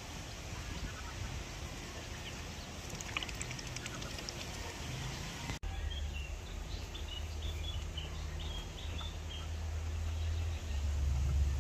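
Backyard poultry giving short, high calls now and then over a steady low rumble of outdoor noise. There is a brief dropout about halfway, after which the rumble is louder.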